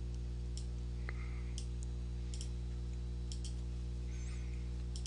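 Computer mouse clicking: a few light clicks, some in quick pairs like double-clicks, over a steady low hum.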